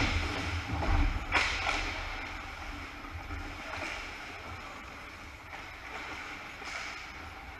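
Ice hockey game sounds: several sharp knocks and clacks in the first two seconds, the kind made by sticks, puck and boards, over a steady hiss of rink noise that fades a little toward the end.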